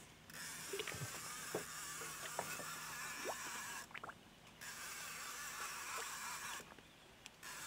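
Outdoor night ambience: a steady high hiss-like chorus that cuts out abruptly twice, with a few short, faint rising chirps scattered through the first half.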